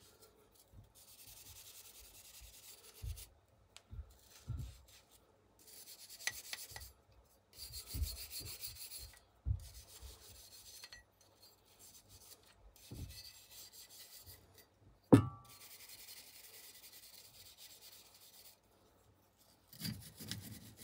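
Wire brush scrubbing the steel bolt carrier of an AR-15 bolt carrier group, in stretches of scratchy brushing that stop and start every second or two. A few low knocks as the part is handled, and one sharp knock about 15 seconds in, the loudest sound.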